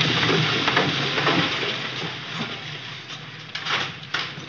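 Cars pulling slowly into a gravel forecourt: engines running and tyres crackling over the loose surface, the sound easing off as they come to a stop.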